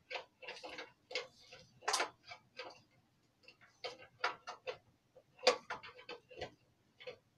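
Irregular clicks, taps and light knocks of small objects being handled, a few per second at uneven intervals, with a short rustle among them.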